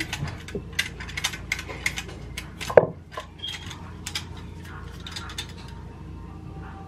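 Handheld grater scraping a carrot into shreds over a bowl in quick strokes, about four a second. About three seconds in there is a loud knock against the bowl. After that come sparser, lighter clinks and scrapes as the grater is handled.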